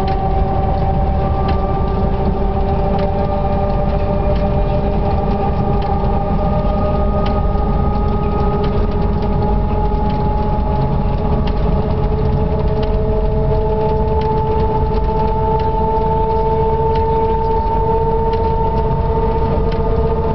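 Cab noise of a CC 6500 electric locomotive under way: the whine of its traction motors and gearing, in several tones that rise slowly in pitch as the train gathers speed, over a steady low running rumble heard from inside the driving cab.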